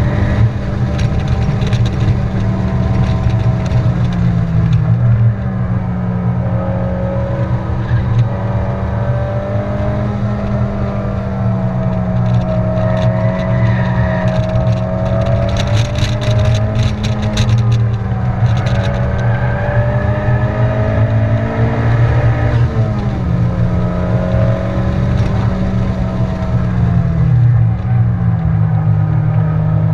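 A car engine heard from inside the cabin while lapping a race track, holding a steady drone whose pitch shifts a few times as gears are changed and the car brakes and accelerates through corners. About halfway through, a crackly rush of tyre and wind noise rises over it for a couple of seconds.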